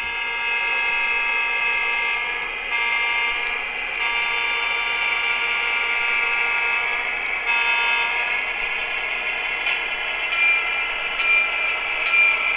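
Model Fairbanks-Morse H10-44 diesel switcher's sound decoder playing a diesel engine sound through its small onboard speaker: a thin, buzzy running note with no bass that shifts in pitch a few times. Brief higher tones come in near the end.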